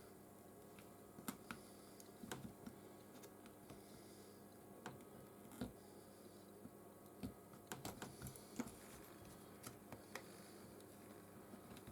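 Faint, irregular clicks and taps of small repair tools working the cracked iPhone 13 screen loose from its frame, over a faint steady hum.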